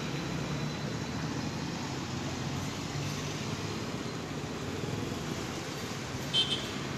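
Street noise with a motor vehicle's engine running in a steady low hum. Two quick high-pitched chirps come near the end.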